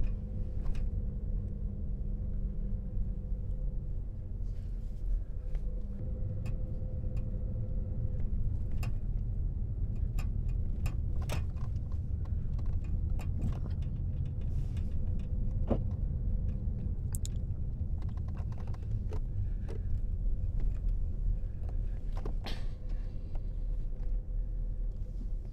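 Inside a car driving slowly on a paved road: a steady low rumble of engine and tyres, with scattered small clicks and rattles. A faint engine hum is heard over the rumble in the first few seconds.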